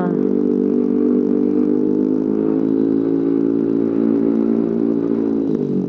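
Yamaha NMAX's 155 cc single-cylinder engine running at a steady throttle through a leaky exhaust. The pitch drops about five and a half seconds in as the throttle closes.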